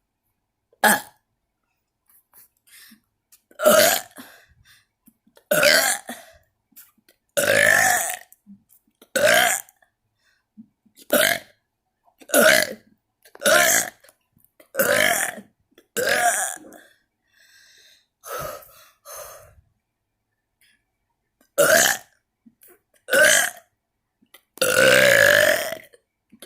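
A person burping deliberately again and again, about fifteen separate burps one to three seconds apart, the longest lasting over a second near the end.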